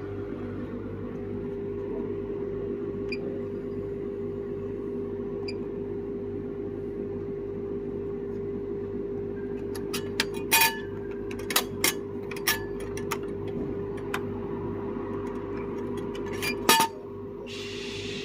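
Steady mechanical hum. In the second half it is broken by a series of sharp clicks and knocks, with the loudest near the end, followed by a brief hiss.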